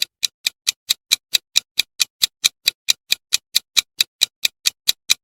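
Countdown timer sound effect: a steady clock-like ticking, about four ticks a second, marking the guessing time in a quiz.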